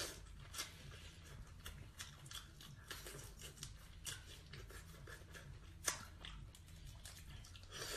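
Shells of whole cooked prawns crackling and clicking as they are bitten and peeled by hand, with close-up chewing. A sharper click about six seconds in.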